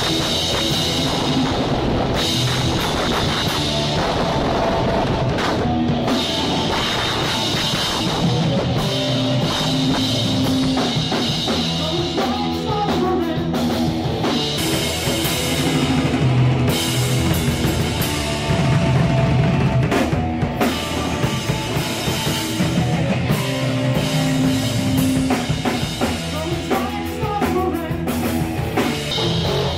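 A very loud rock band playing at rehearsal, driven by a drum kit with dense, sustained amplified instruments, recorded on a Nokia smartphone's microphone.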